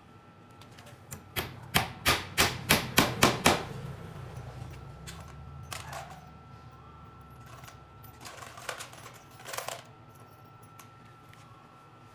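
A quick run of about eight sharp knocks, three or four a second, then a few scattered single knocks, over a faint steady hum.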